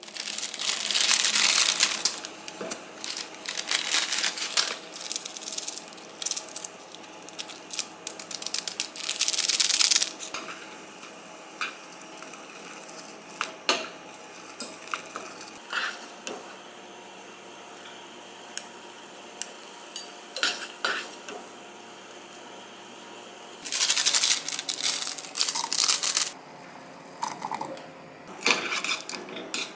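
Instant ramen being cooked in a pot on a gas stove. Plastic packaging crinkles and tears in loud stretches near the start and again late on, and chopsticks click and tap against the pot, over the steady bubbling of boiling water.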